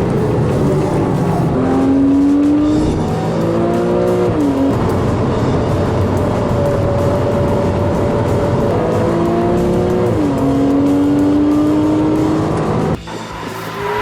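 Race car engine under hard acceleration, its pitch climbing through the revs and dropping sharply at two upshifts. The sound cuts away abruptly near the end.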